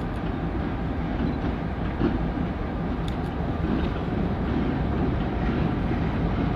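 Eastern Maine Railway freight train, led by a GP38-3 diesel locomotive, running on the rails: a steady, even noise with a couple of faint clicks about three seconds in.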